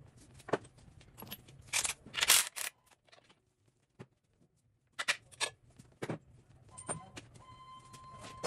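Metal tools and engine parts clinking and clattering as they are handled during an engine teardown, in a run of sharp clicks with a short quiet gap partway through. Near the end a metal piece rings with a clear tone after being struck or set down.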